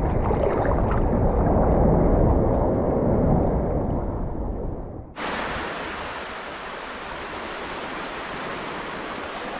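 Sea water washing and sloshing around a camera held at the waterline in the surf. About five seconds in it cuts suddenly to a steadier, brighter hiss of small waves breaking on a sandy beach.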